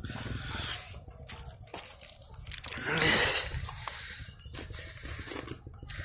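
Footsteps crunching on ground covered in fresh hailstones over a low rumble, with the loudest crunch about three seconds in.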